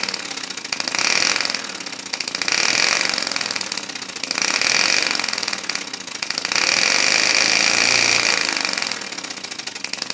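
Small 3D-printed compressed-air engine with two opposed cylinders, running on compressed air and spinning a propeller. It makes a rapid stream of exhaust puffs and propeller whoosh. The sound swells and eases several times as the engine's speed rises and falls.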